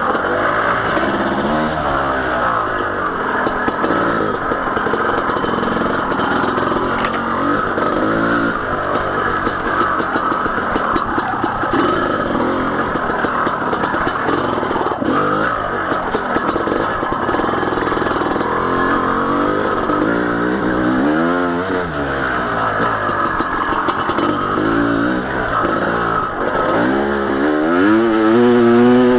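1991 Honda CR500's two-stroke single-cylinder engine revving up and down as the dirt bike is ridden along a trail loop, its pitch repeatedly rising and falling, with a strong rev near the end.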